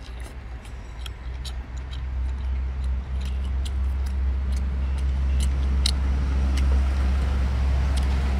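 A low, steady engine rumble that grows louder about three seconds in, with scattered short wet clicks and smacks of someone eating.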